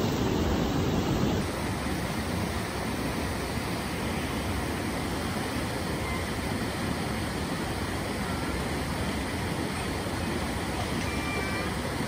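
Steady rush of a mountain stream pouring over a small rocky cascade, an even hiss of water. In the first second or so, a swimming golden retriever splashes before the sound settles.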